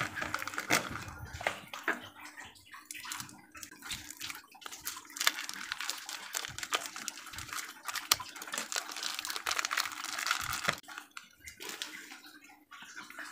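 A knife scraping soft, wet bait paste out of a plastic bag into a plastic bowl, with the bag crinkling: irregular wet squishes, scrapes and small clicks.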